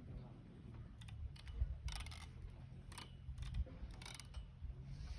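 Faint clicks and creaks from a playground swing's metal hanger hooks as it swings back and forth, over a low steady rumble.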